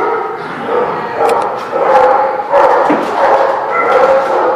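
Dogs barking and yipping together, the barks overlapping with no break between them.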